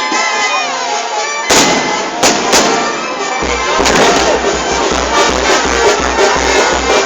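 Music playing throughout, with three sharp firework bangs about one and a half to two and a half seconds in. A heavy low beat comes into the music about halfway.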